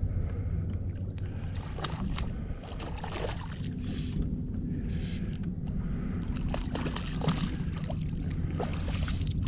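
Water lapping and splashing against a plastic kayak hull, over a steady low rumble. A few short splashes come around the middle, likely from the hooked fish being fought at the side.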